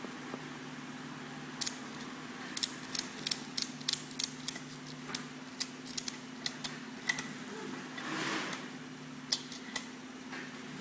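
Irregular sharp metal clicks and clinks of a ratchet strap's hook and ratchet being handled and fitted to webbing D-rings, with a brief swish of the strap webbing near the end. A steady low hum runs underneath.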